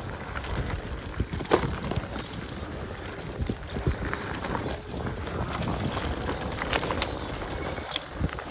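Mountain bike rolling fast over a bumpy dirt trail: tyre roar with irregular rattles and knocks from the bike and its frame bag, the sharpest knock about one and a half seconds in, and wind rushing over the microphone.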